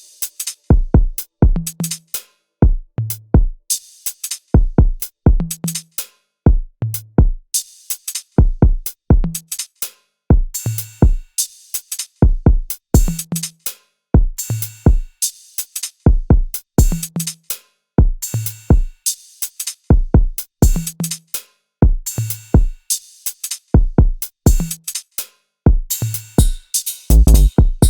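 Instrumental electronic music built on a sparse drum-machine beat: short kick thuds, clipped low bass notes and crisp high hits in a pattern that repeats about every two seconds. Near the end a louder, denser low fill breaks the pattern.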